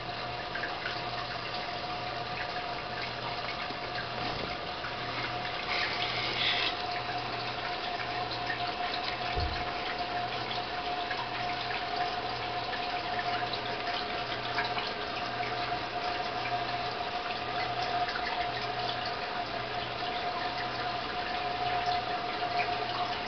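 Goldfish tank's water filter running: a steady wash of moving water with a constant whine. Beneath it is a low hum that pulses about once a second.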